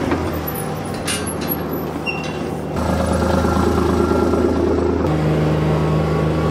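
Side-by-side utility vehicle engine running as it drives off across a pasture, with a brief rattle about a second in. The engine gets louder near three seconds in, and its note steps up around five seconds in.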